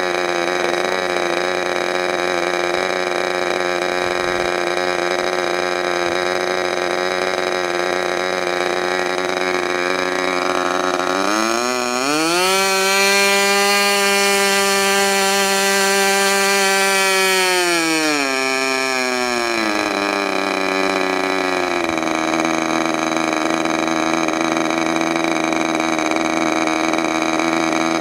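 Modified K&B .61 two-stroke glow-fuel model airplane engine running with its propeller on a test stand. About halfway through it speeds up sharply, holds high revs for about six seconds, then drops back in steps to a steady lower speed.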